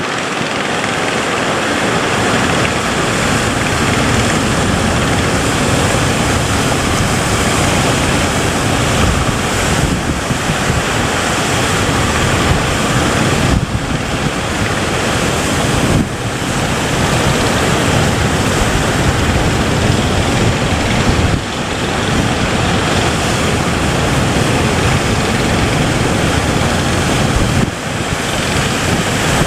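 Loud, steady rush of wind buffeting the microphone mixed with the wash of waves at sea, changing abruptly a few times.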